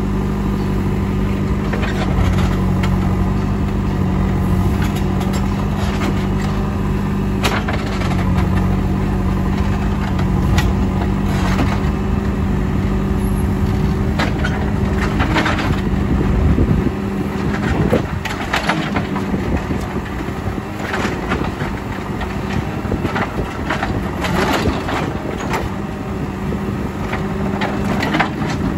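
JCB 3CX backhoe loader's diesel engine running under load, with scattered sharp knocks and scrapes of the machine working; the engine note drops about two-thirds of the way through.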